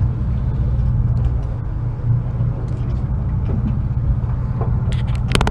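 Charter fishing boat's engine running with a steady low rumble. A few sharp clicks come near the end.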